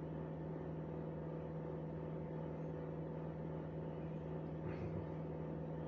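A steady low hum with a constant pitch, like a running motor or fan, with one faint light clink of a metal spoon against a ceramic bowl near the end.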